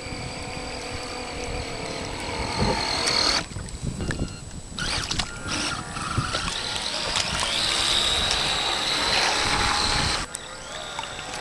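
Radio-controlled model speedboat's motor running on the water: a high whine with water hiss. The whine climbs in pitch about three seconds in and breaks off, then returns louder as the boat passes close, and cuts off suddenly near the end.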